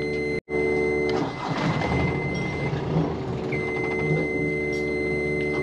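Electric fuel pump of a Yanmar 4JH5E marine diesel running with the ignition on and the engine not yet started, priming fuel through the filter: a steady electric hum with a thin high whine over it. It cuts out sharply for a moment about half a second in, and the hum drops away for a couple of seconds in the middle before coming back.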